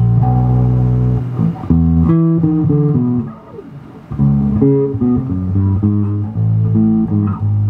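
Electric bass guitar played through an Orange Crush Bass 50 combo amp. It opens with a long held low note, then a run of plucked notes, a brief drop-off about three seconds in, then another line of notes.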